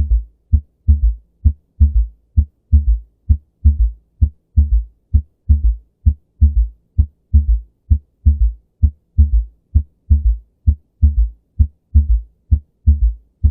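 Heart sounds with a third heart sound (S3): a steady, quick repeating rhythm of low thuds, the extra early-diastolic beat after each S2 giving a galloping cadence. The S3 is the sign of abrupt slowing of left-ventricular inflow in early diastole, with raised filling pressures and a stiff left ventricle.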